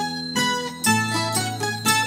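Plucked string instruments playing an instrumental passage of live folk music: notes struck in a quick, steady rhythm over a held bass note.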